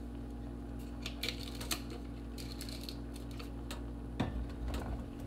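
Scattered light clicks and taps of containers and utensils being handled at a kitchen counter, over a steady low hum. A heavier low bump comes about four seconds in.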